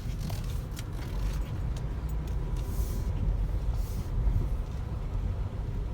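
Steady low road and engine rumble of a car driving slowly, heard from inside the cabin, with a few faint clicks and rattles.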